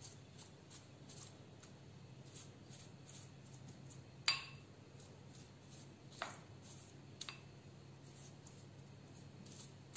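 Three light clinks of glassware struck by a pastry brush: the first, about four seconds in, is the loudest and rings briefly, and the last is a quick double tap. Under them runs a faint steady hum.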